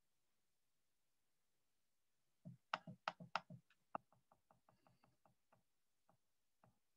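Computer mouse clicking, after a near-silent start: a cluster of sharp clicks about two and a half seconds in, then a quicker run of lighter clicks, about four a second, and two last single clicks near the end.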